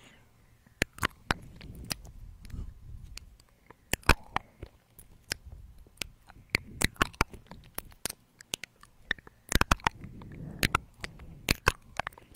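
Close-up ear-licking mouth sounds on a dummy-ear microphone: irregular wet clicks and smacks, a few in quick clusters, with soft low rumbles in between.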